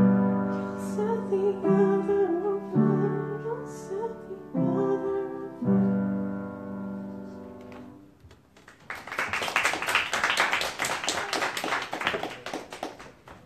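Upright piano playing the closing chords of a song, the last chord ringing out and fading away; then an audience applauding for about four seconds.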